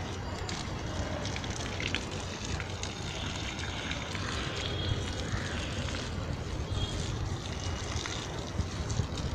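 Water from a garden hose running and splashing onto soil and straw mulch, with a steady low rumble underneath.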